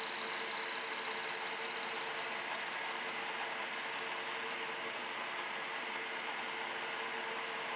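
Milling machine running, its 3/8-inch end mill feeding straight down to cut a keyway into the bore of a metal spur gear: a steady hum with a high whine over it, easing slightly near the end.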